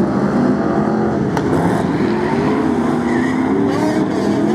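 Several BriSCA F1 stock cars' V8 engines running hard around the track, their notes rising and falling as they lift and accelerate. A single sharp click is heard about a second and a half in.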